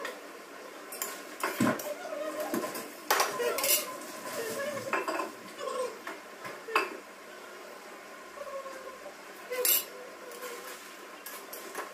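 Dishes and kitchen utensils clattering and clinking as they are washed and handled, an irregular run of sharp clanks.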